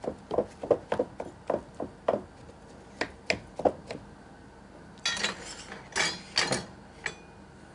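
Spatula knocking and scraping against a glass mixing bowl as a mashed potato mixture is stirred, about three strokes a second, stopping after about four seconds. A few louder handling noises follow near the end.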